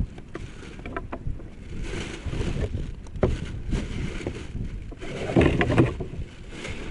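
Wind rumbling on the microphone on open ice, with a few small clicks and rustles of fishing gear being handled, and a louder surge of rustling noise about five and a half seconds in.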